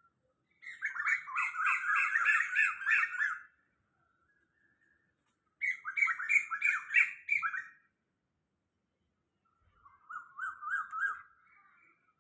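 A bird calling in three bouts of rapid, repeated chattering notes, the first and longest the loudest, with short pauses between bouts.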